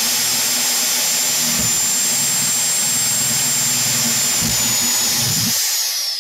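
Electric drill running at full speed, its twist bit boring through a PVC pipe with a steady high motor whine. About five and a half seconds in the cutting stops and the motor is released, the whine falling as it spins down.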